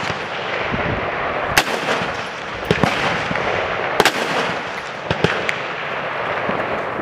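M4 rifles firing single shots, several sharp reports at uneven intervals, each trailing into echo over a steady wash of range noise; the loudest shots come about a second and a half and four seconds in.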